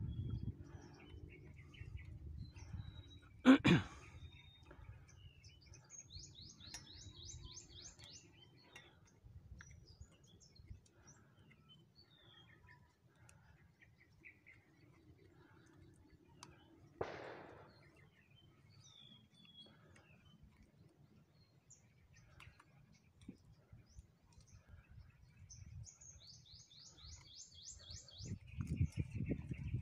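Small birds chirping, with a fast run of descending trilled notes twice. A sharp knock about three and a half seconds in is the loudest sound, and a low rumble of handling noise comes near the start and the end.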